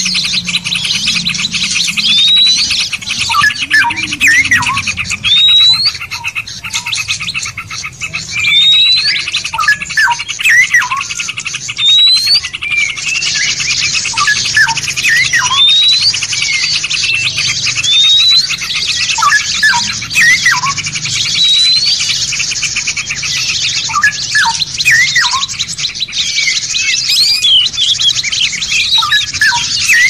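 Recorded songbirds singing in a dense mix: fast continuous chattering with a short upswept whistle repeated every couple of seconds and scattered lower chirps. The chattering grows louder about halfway through.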